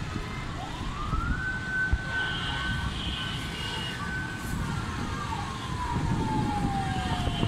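A siren sounding once: it rises quickly to one steady high tone, holds it for about three seconds, then slowly falls in pitch to the end. Wind and traffic rumble run underneath.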